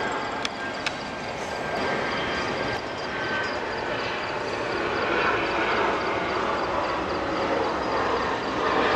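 Amtrak passenger train rolling by, a steady rush of wheels on rail, with two sharp clicks in the first second.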